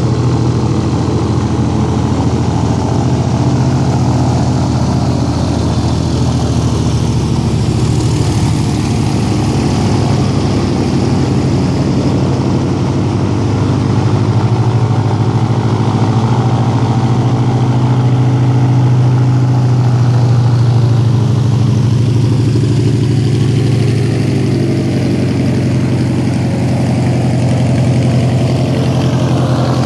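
Airboat engine and its big rear fan running loudly and steadily at low speed, a constant low hum with no change in pitch.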